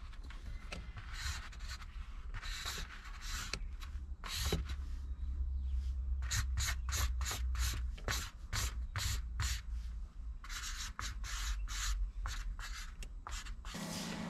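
Writing tool scratching across a makeshift notepad as a plan is drawn: a few longer strokes at first, then a run of quick short strokes, several a second, with a short break after them.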